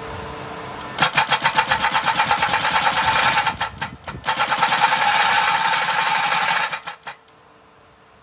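Husqvarna DXR 140 demolition robot working: a steady electric-hydraulic hum, then a loud rapid rhythmic hammering of about a dozen blows a second, in two bursts with a short break between, stopping about seven seconds in.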